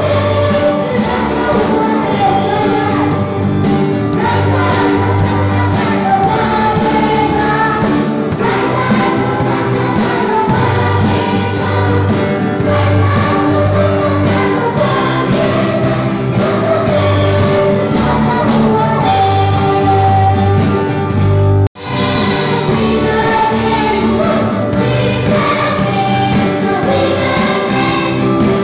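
A large group of children singing a Christian action song together, with instrumental backing. The sound drops out for an instant about three-quarters of the way through.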